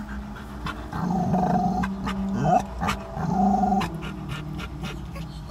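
A dog growling and grumbling in drawn-out low sounds: one long grumble about a second in, a short rising yelp in the middle, and another grumble a little later.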